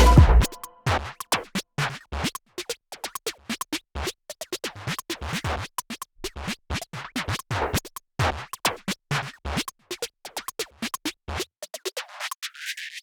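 Background electronic hip-hop music: a sparse beat of sharp clicks and drum hits with record-scratch-like sounds, its low end swept out by a filter near the end.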